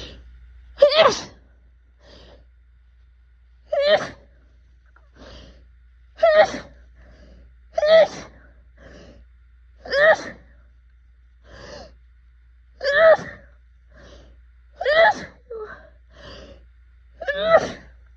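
Person having an allergy sneezing fit: about eight powerful sneezes, one every two seconds or so, each with a sharp gasping intake of breath between.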